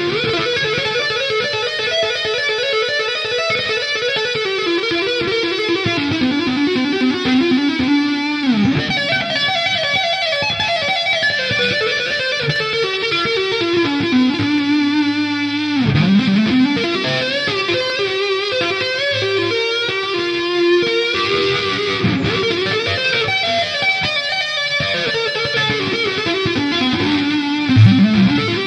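Electric guitar, an Ibanez Radius 540R played through the Scuffham S-Gear 2.9 amp simulator, played with two-hand tapping: fast, unbroken legato runs of notes climbing and falling in repeating patterns. The pitch swoops down sharply twice, about a third of the way in and again around halfway.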